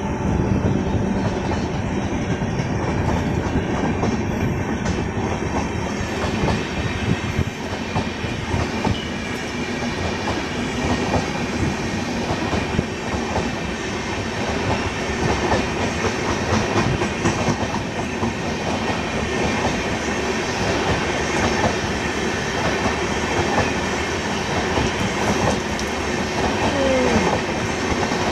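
LHB passenger coaches of an Indian express train rolling past slowly: a steady rumble of wheels on rail, with a continual clickety-clack as the wheels cross rail joints.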